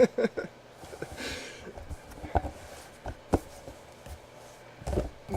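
Handling sounds: a soft rustle of fabric or packaging about a second in, then a few light knocks or clicks spread over the next few seconds.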